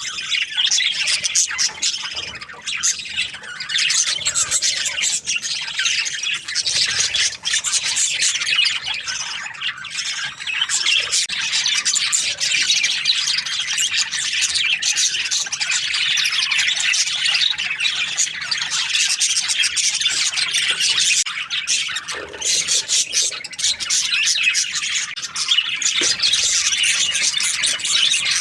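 A flock of budgerigars chattering and squawking together, a dense, continuous warble of many short chirps and squawks with no pauses.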